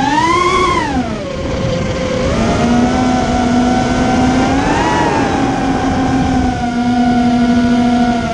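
ImmersionRC Vortex 250 Pro FPV racing quadcopter's motors and propellers whining in flight, the pitch following the throttle: a quick rise and fall in the first second, a climb to a peak about five seconds in, then a steadier tone. These are motors whose bad bearing noise the owner thinks he has fixed.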